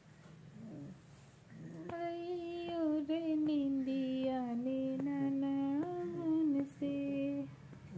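A woman humming a wordless lullaby tune of long, slowly stepping held notes, starting about two seconds in and stopping shortly before the end.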